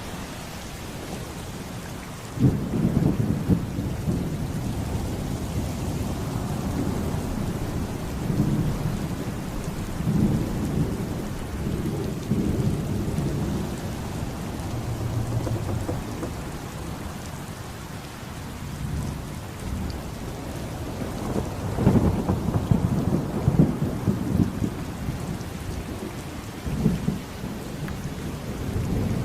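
Thunderstorm: rain falling steadily under rolling thunder, with a sudden loud thunderclap a couple of seconds in and another loud, crackling rumble about three-quarters of the way through.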